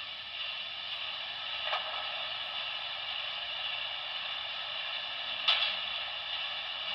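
A model steam locomotive's sound decoder playing its tender water-filling effect: a steady gush of water hiss from a small onboard speaker. Two clicks cut in, the louder one about five seconds in.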